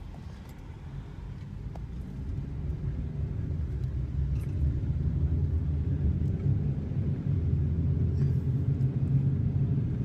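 Car driving, heard from inside the cabin: a steady low rumble of engine and road noise that grows louder over the first few seconds and then holds.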